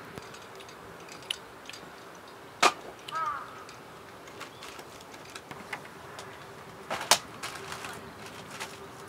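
Quiet outdoor ambience with a faint steady hum, a few sharp knocks and one short bird call. The knocks come about two and a half seconds in and about seven seconds in; the bird call comes about three seconds in.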